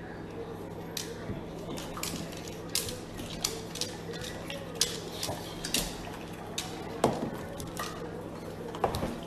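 Scattered light clicks and clinks, irregular and a few a second, over a steady low hum in a kitchen.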